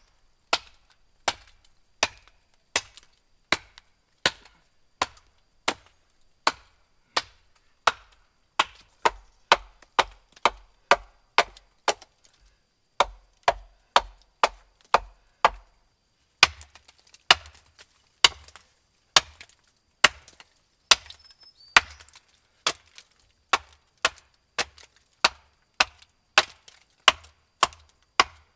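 Axe chopping into wood with steady, evenly spaced strokes, about three every two seconds, each a sharp knock, with a couple of brief pauses.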